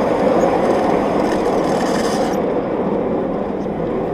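Coal-fired 7.25 inch gauge miniature steam locomotive and riding car running along the track: a steady, dense rumble of the train on the move. A fainter hiss above it cuts off a little past halfway.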